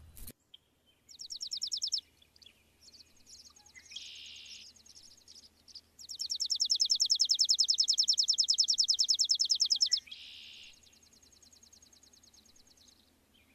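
High-pitched, rapidly pulsed trills from small wild creatures calling, about a dozen pulses a second: a short one about a second in, a loud one lasting about four seconds from six seconds in, and fainter trills between, with two brief harsher, hissy calls.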